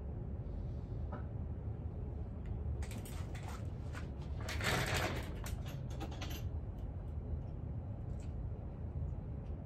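Small objects being handled on a workbench: a cluster of clicks, taps and rattling in the middle few seconds, loudest about halfway through, over a steady low hum.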